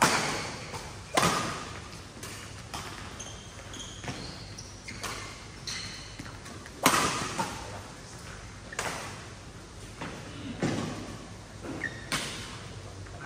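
Badminton rally: a racket strikes the shuttlecock with a sharp crack every second or two, each hit echoing through the hall. The loudest hit comes about seven seconds in.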